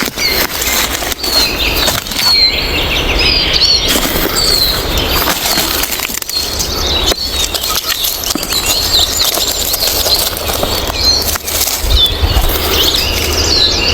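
Loud rustling and crackling of dry leaves and undergrowth, made by someone moving through the forest floor and brushing vegetation. Birds chirp in the background, most clearly a couple of seconds in and again near the end.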